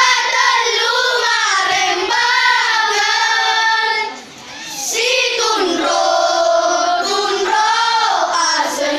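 Children's choir singing a song in Bugis together, with a short break between phrases about four seconds in.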